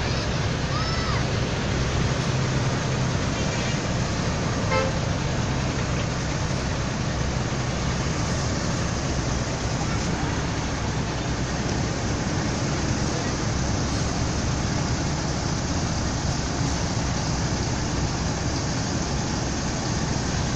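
Steady bus-terminal din of bus engines running and traffic noise, with two brief horn toots, about one and five seconds in.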